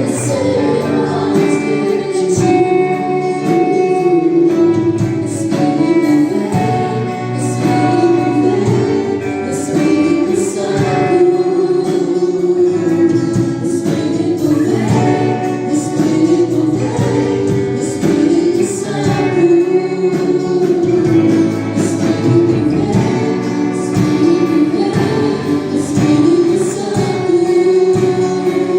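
Gospel worship song: a group of voices singing together in a choir over a continuous instrumental accompaniment.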